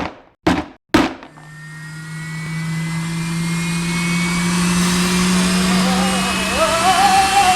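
Three sharp knocks about half a second apart, then a vacuum cleaner motor starts and runs up to a steady hum with a whine, growing louder. A wavering higher tone comes in over it near the end.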